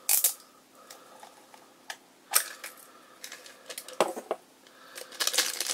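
Plastic gashapon capsule being handled and opened: a few separate sharp plastic clicks, then a quick cluster of clicks and snaps near the end.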